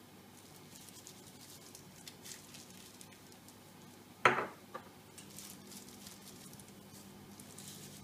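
Soft crinkling and rubbing of a plastic food glove as a hand works spice powder into raw chicken breasts in a glass baking dish. About four seconds in there is a single sharp knock, the loudest sound.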